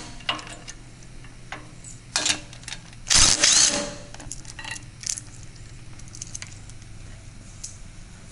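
Cordless power driver with a socket running in short bursts as it backs out 9/16 bolts from a steel lift frame: a brief burst about two seconds in, then a longer, louder one just after three seconds, followed by a few light clicks.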